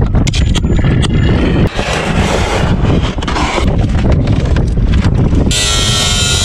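Wind buffeting the microphone, with scattered clicks and knocks from handling. About five and a half seconds in, a cordless DeWalt angle grinder starts and cuts into a steel roof shingle with a high whine.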